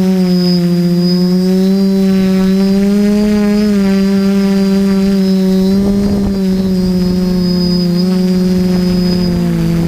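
FPV drone's motors and propellers heard from the onboard camera: a loud, steady buzzing whine whose pitch drifts gently up and down as the drone manoeuvres, with a thin high whine above it.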